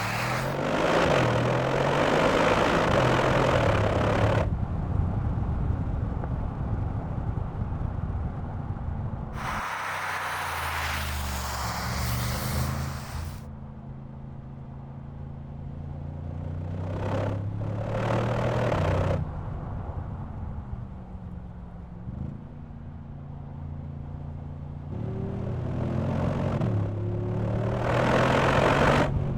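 Mercedes-AMG G63's 4.0-litre twin-turbo V8 pulling hard four times, each pull a loud surge of engine and exhaust noise. The engine pitch rises and falls through the gears and drops back to a lower drone between pulls.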